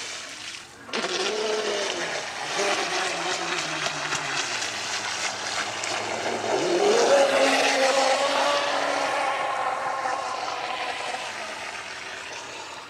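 Electric RC speedboat's motor whining as it runs across the water, its pitch sliding down and then rising sharply about halfway through with the throttle, over the hiss of its spray. There is a short drop in sound about half a second in.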